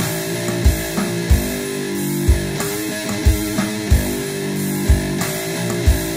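Amplified one-string cigar box guitar (diddley bow) playing a heavily distorted metal riff, with a kick-drum beat thudding beneath it.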